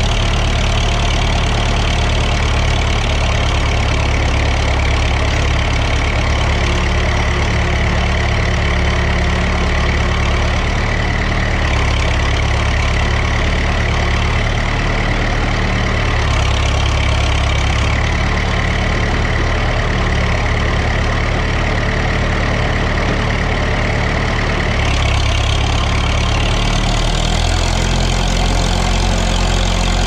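Case 830 tractor engine running steadily, heard close to its upright exhaust stack while the tractor works with its loader and bale spear; the engine speed changes in the last few seconds.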